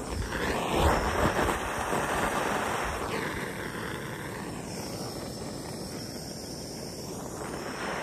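Hand-held propane torch burning with a steady hissing flame as it is played over a plastic patch to melt it in. The hiss is loudest in the first second or two and shifts in tone in the middle as the torch is swung away and brought back.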